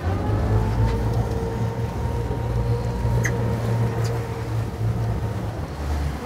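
Honda four-stroke outboard motor running under way, a steady low rumble with a steady whine over it, stopping just before the end.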